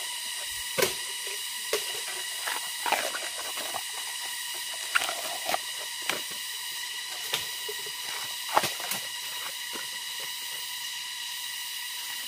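Bamboo shoot sheaths being peeled off by hand: irregular crisp snaps and tearing crackles, one every second or so, over a steady high hiss.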